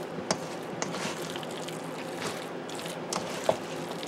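Casserole filling of creamy mix and chunks of leftover meatloaf being squished and mixed by hand in a stainless steel bowl, giving soft squelching, with a few sharp clicks, the loudest about three and a half seconds in.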